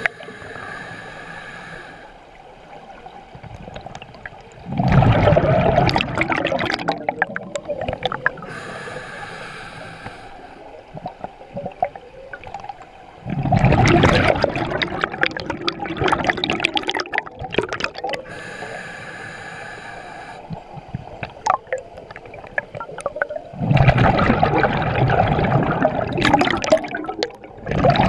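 Scuba diver breathing underwater through an open-circuit regulator: three breaths about nine to ten seconds apart, each a short hissing inhale through the demand valve followed by a longer, louder rush of exhaled bubbles.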